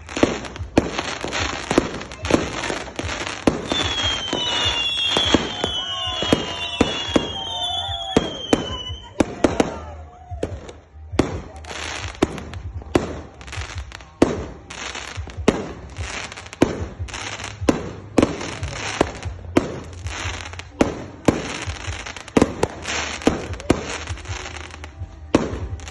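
New Year fireworks: a dense, irregular barrage of bangs from aerial shells and firecrackers. Several high whistling tones glide in pitch about four to nine seconds in.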